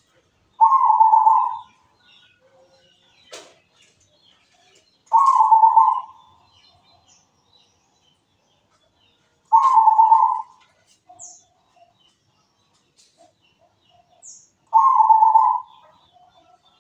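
Zebra dove (perkutut) cooing: four pulsed coo phrases, each about a second long, coming about every four to five seconds. Faint high chirps of other small birds sound between the phrases.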